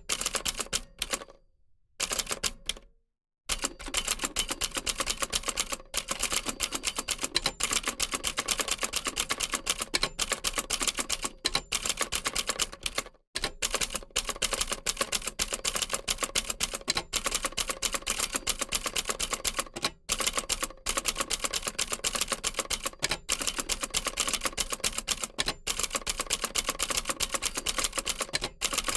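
Old typewriter being typed on: fast, dense key strikes clattering on. They stop for about two seconds shortly after the start, then resume, with brief breaks later.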